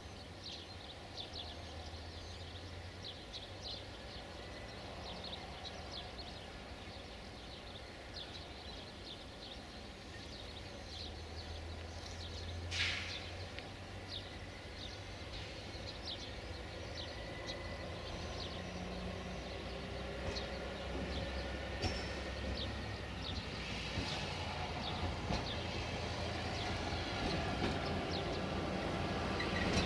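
Engine of a Marub UAM215 self-propelled rail vehicle running as it approaches slowly along the track, a low drone growing steadily louder. High short chirps come and go throughout, and a single sharp click sounds about halfway through.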